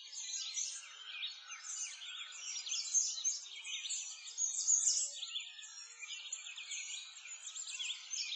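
A dense chorus of songbirds, many short high chirps and trills overlapping without a break.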